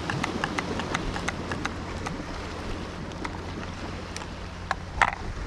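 Wind rumbling on the microphone, with irregular small clicks and ticks from hands wrapping bait elastic around a squid bait on a fishing hook. A short squeak near the end.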